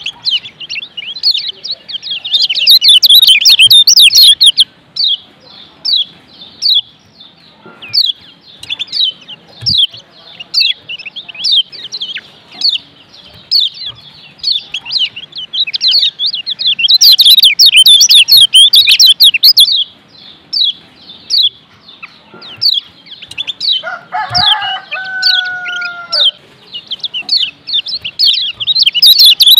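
Kecial kuning (Lombok yellow white-eye) singing a rapid, high-pitched chattering song, the 'gacor' style, coming in loud dense bouts of a few seconds with quieter chirping between. About two-thirds of the way through a lower, drawn-out call sounds for about two seconds.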